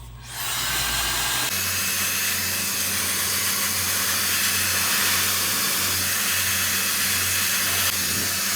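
Compact 1500-watt hair dryer switched on and running steadily, a loud rush of air with a low motor hum beneath it. The hum changes about a second and a half in.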